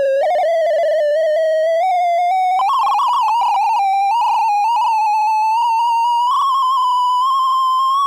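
Synthesized sorting-visualization tones from 'The Sound of Sorting' running quicksort: a continuous stream of electronic beeps whose pitch follows the array values being accessed, wobbling in small steps while climbing gradually from low to high.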